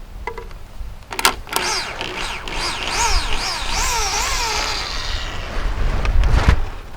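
A saw cutting through a wooden log, a steady rasp with a whine that rises and falls a few times a second. There are a couple of sharp knocks about a second in and a heavy low thump near the end.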